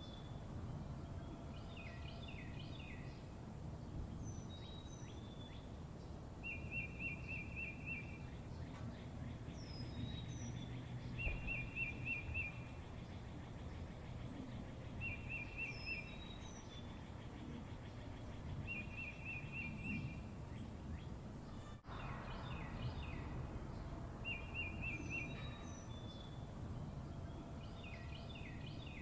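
Small songbirds singing: a short, rapid trill repeated every few seconds, with higher chirps and quick falling calls in between, over a steady low background rumble. A brief dropout comes about three-quarters of the way through.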